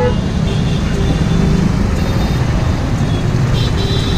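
Dense street traffic of motorcycle and scooter engines idling and running in a jam, a steady loud rumble, with short horn toots.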